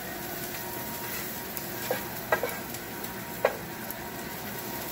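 Chopped onions and garlic sizzling in butter in a skillet, stirred with a spatula, with a few sharp taps of the spatula on the pan about two, two and a half and three and a half seconds in.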